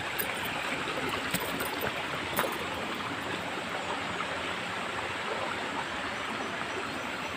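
Creek water running steadily, an even rushing hiss, with a couple of faint clicks.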